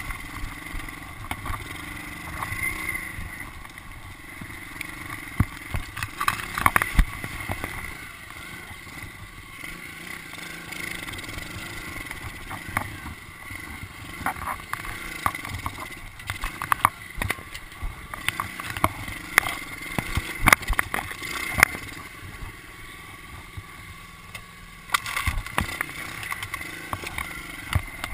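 110cc pit bike engine running as the bike is ridden through long grass, its revs rising and falling, with frequent sharp knocks and rattles from the bike jolting over rough ground.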